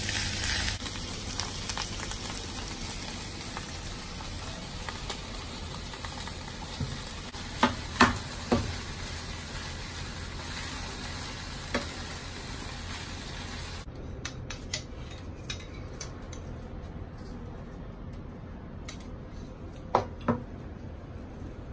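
Rice frying in a pan, sizzling steadily while a metal spoon stirs it, with a few sharp knocks of the spoon against the pan. The sizzling hiss drops away about two-thirds of the way through, leaving only occasional clinks.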